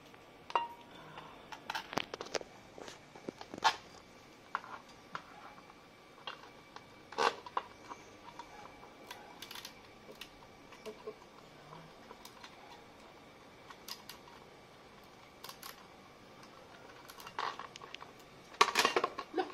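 Scattered light clicks and knocks of an exhaust heat guard being set in place and its screws driven with a hand screwdriver, with a louder burst of clattering near the end.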